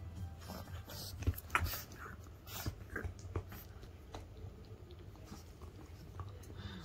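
A corgi chewing a chew stick: scattered soft clicks and crunches, busiest in the first few seconds, over a low steady hum.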